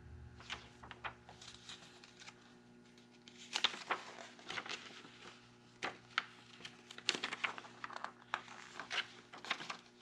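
Pages of a paper brochure being turned and handled: a string of soft, crisp rustles and snaps, busiest in the middle and near the end.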